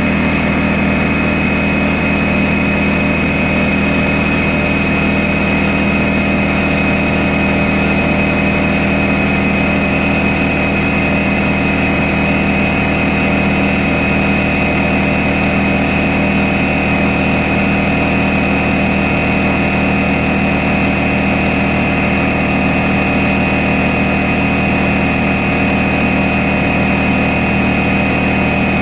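Electric air compressor running steadily off a 2000-watt battery inverter, with a Honda EX1000 generator running alongside. A thin, steady high whine sits over the low hum, and nothing changes through the run.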